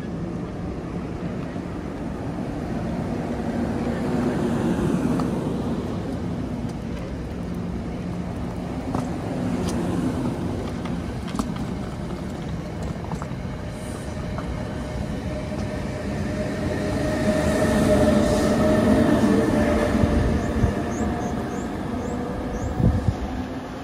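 NJ Transit electric passenger train of Comet coaches rolling past along the platform: steady rumble of wheels on rail with a few clicks. Steady tones in the running sound get louder about three-quarters of the way through.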